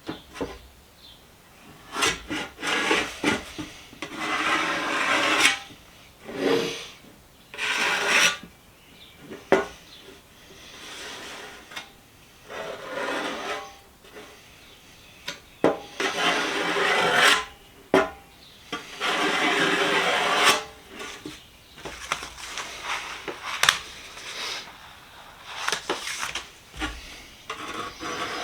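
Body filler (Bondo) being scraped and smoothed across the top of a socket-set box with a spreader, in a string of uneven strokes of one to two seconds each with short pauses between.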